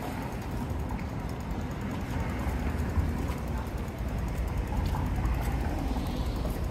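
Street traffic running steadily, heard as a low rumble.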